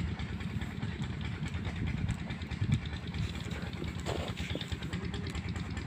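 An engine idling steadily with a fast, even low pulsing.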